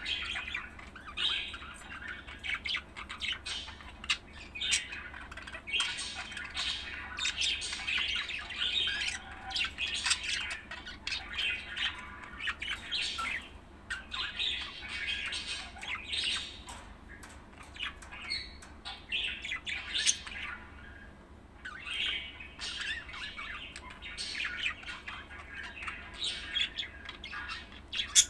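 Budgerigar chattering continuously, a rapid run of chirps and squawks with a couple of short pauses.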